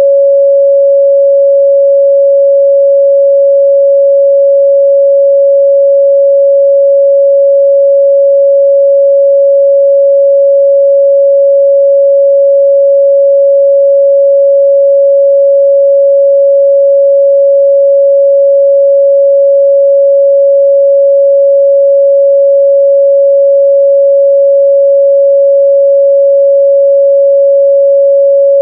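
A pure 557 Hz sine-wave test tone, held steady and loud with no change in pitch or level.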